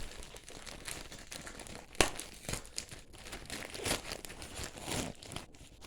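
Shipping packaging being handled and torn open by hand, an irregular crinkling and rustling with a sharp snap about two seconds in.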